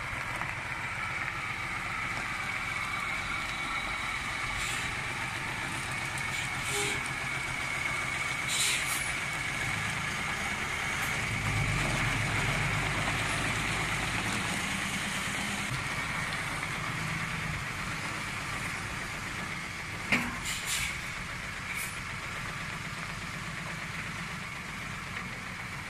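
Isuzu Deca FXZ360 dump truck's diesel engine idling with a steady low drone, running louder for a few seconds in the middle. A steady high whine runs over it, and a few sharp clicks come near the end.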